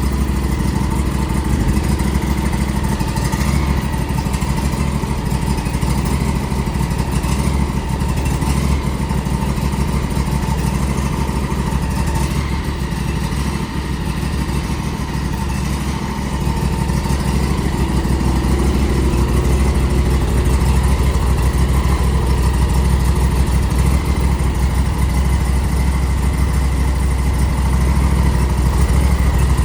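John Deere lawnmower engine running steadily at idle just after a cold start on the choke in freezing weather; it dips briefly about halfway, then runs a little louder.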